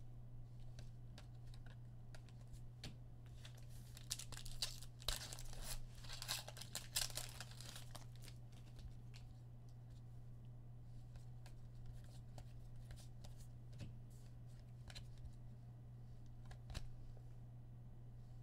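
Foil wrapper of a trading-card pack being torn open and crinkled, a burst of crackling from about four to eight seconds in, followed by quieter handling with a few light clicks. A steady low hum runs underneath.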